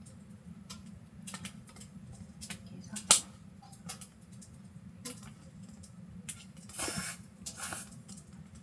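Tableware clicking and tapping during a meal: scattered small clicks, one sharp click about three seconds in, and two brief rustles near the end, over a steady low hum.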